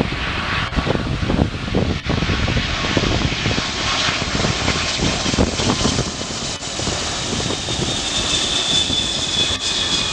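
Boeing 747-400's four Rolls-Royce RB211 turbofans as the airliner passes low on final approach: a steady jet roar. A high whine comes in about eight seconds in and grows louder as the jet nears, sliding slightly lower in pitch.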